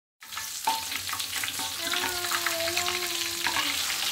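A whole fish frying in hot oil in an aluminium wok, sizzling steadily, with scrapes and taps of a spatula as it is turned. A faint held tone sounds partway through.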